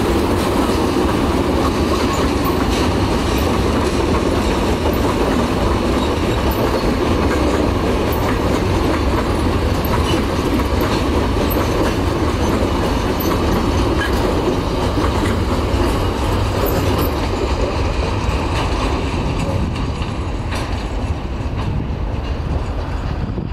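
Freight train of covered wagons hauled by two Class 18E electric locomotives rolling past: steady noise of steel wheels on the rails, easing off a little near the end as the train draws away.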